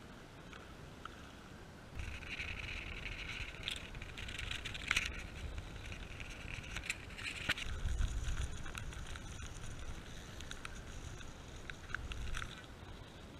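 Cyclocross bike ridden over bumpy grass, heard from a camera mounted on the bike: a steady low rumble and hiss with scattered rattles and clicks from the bike. It grows louder about two seconds in and drops back near the end.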